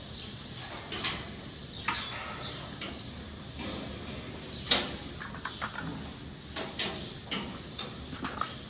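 Irregular clicks and knocks in a cattle barn, the loudest a little before five seconds in and a quicker run of them near the end.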